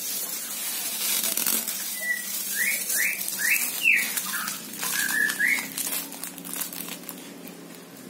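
A small songbird gives about nine short, mostly upslurred whistled chirps in quick succession, from about two seconds in to past the middle. Underneath is a rustling and fluttering that is busiest in the first half.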